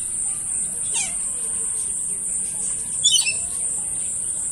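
Two short, high animal chirps, each falling in pitch, about two seconds apart, over a steady high-pitched drone.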